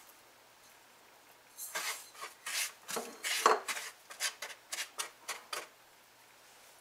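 A silicone spatula scraping brown sugar from a bowl and spreading it across a non-stick frying pan: a quick series of short, gritty scraping strokes that start about a second and a half in and stop about a second before the end.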